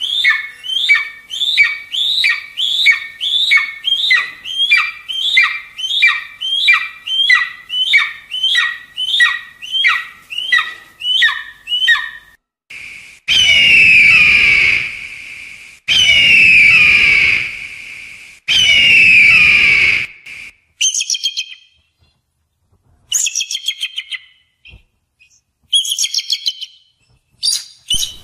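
Yellow-headed caracara calling: a fast series of short, downward-sweeping cries at about two a second for the first twelve seconds, then three long, loud descending screams, then bursts of short harsh calls near the end.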